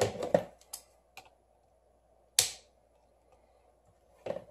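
Small clicks and taps of hands working double-sided adhesive tape onto a phone's metal frame on a wooden board. There is a cluster of clicks at the start, a few scattered ticks, one louder, sharp scratchy sound about two and a half seconds in, and another click near the end.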